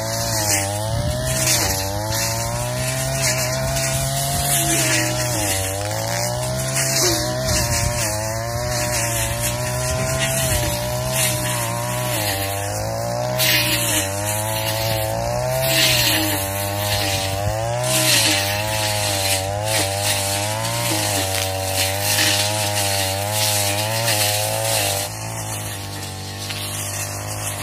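Tanika 338 backpack brush cutter's small two-stroke engine running under load, its pitch rising and falling as the cutter swings through thick grass and cogon grass. About 25 s in it drops back and runs more evenly.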